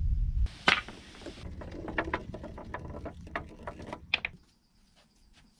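A cue striking a wooden billiard ball on a mud-built pool table, then a string of separate clicks and knocks as the balls hit each other and roll. The sharpest knock comes about four seconds in. A low rumble cuts off about half a second before the first strike.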